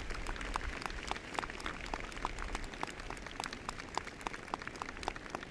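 Crowd applauding, with single sharp hand claps standing out above the spread of clapping, easing off slightly toward the end.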